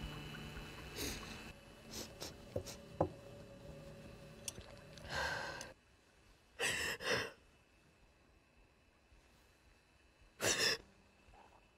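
A woman crying: a long shaky breath about five seconds in, two quick sniffs straight after, and another sniff near the end. Before that, soft music fades out in the first second or so and a few light clicks sound.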